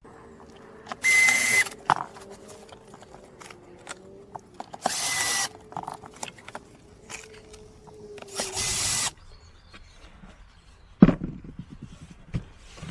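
Cordless drill driving screws, in three short bursts each well under a second long with a steady whine, followed by a sharp knock near the end.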